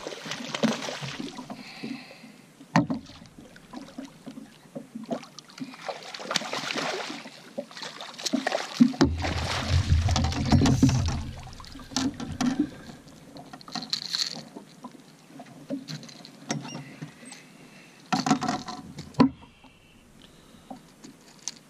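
A hooked striped bass splashing at the surface beside the boat as it is played and landed, in several separate surges of splashing, with scattered knocks and clicks in between.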